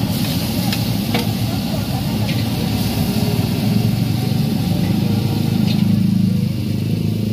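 Stir-frying noodles in a street cart's steel wok over a loud, steady burner roar, with a metal spatula clacking and scraping against the wok a few times.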